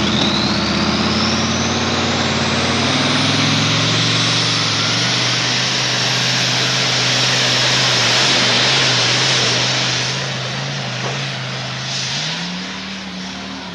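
Modified pulling tractor's engine running at full power under load as it drags the brake sled, with a high whine rising in pitch over the first few seconds. The sound eases off somewhat near the end.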